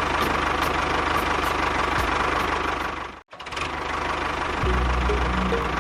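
Small engine of a miniature DIY tractor running steadily with a fast, even ticking. The sound cuts out abruptly a little past the middle, then returns, and a steady low hum comes in near the end.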